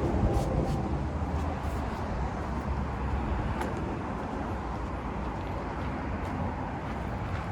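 Steady low machine rumble with a few faint clicks.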